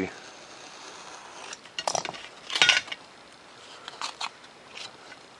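Razor knife slicing 3 mm Depron foam: two short scraping cuts about two seconds in, then fainter ticks and scrapes near four seconds.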